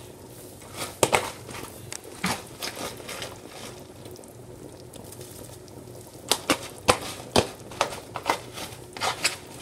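Irregular clicks and light taps as chopped broccoli is added to a pan of soup: a couple about one and two seconds in, then a denser run in the last few seconds.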